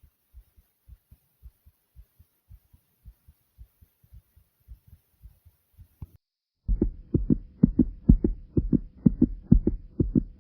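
A fast human heartbeat: quick, faint, low thumps, then after a brief silence about six seconds in, a much louder run of thumping beats over a faint steady hum.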